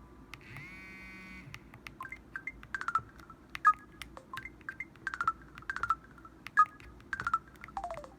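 Samsung Anycall SPH-W5200 phone playing its short electronic effect tones: a brief rising chime about half a second in, then a string of quick beeps and clicks, with a blip sliding down in pitch near the end.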